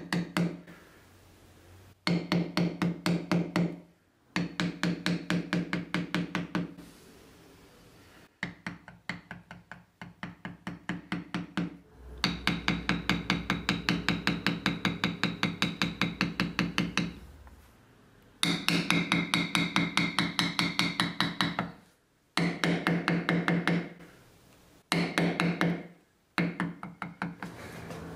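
A mallet striking a metal leather-stamping tool into heavy vegetable-tanned Hermann Oak leather, tooling a carved floral design. The taps come in quick runs of about six light strikes a second, with short pauses between runs as the tool is moved.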